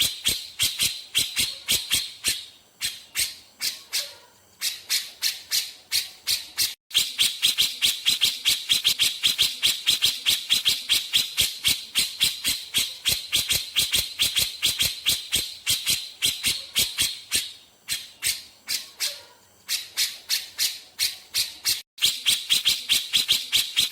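Grey-cheeked bulbul (cucak jenggot) giving its rapid 'besetan' call: a fast, even string of sharp, high chattering notes, about five a second, that thins out twice for a second or so.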